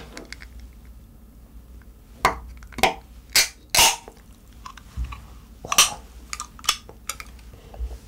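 Aluminium drink can being opened by its pull tab: a series of sharp metallic clicks and snaps between about two and six seconds in as the tab is pried up and the can cracks open.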